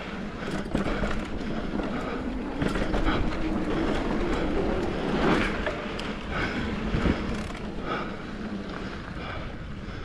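Mountain bike riding over a rough trail: tyres rumbling on dirt and rock, with steady rattling and knocking from the bike and a rush of wind on the microphone.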